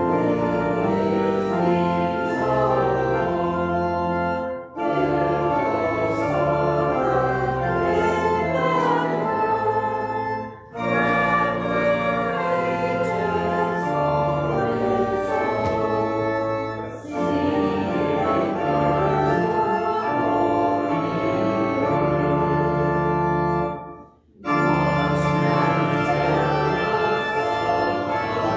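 Church organ playing a hymn with voices singing along, in phrases of about six seconds with a short break between each; the recessional hymn as the choir processes out.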